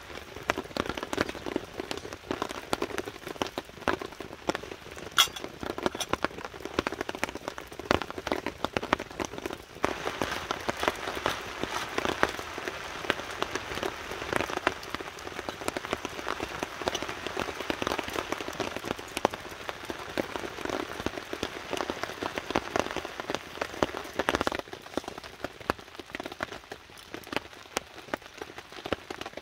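Heavy rain falling on a tarp shelter, many separate drops hitting close by over a steady hiss. It gets heavier about a third of the way in and eases a little near the end.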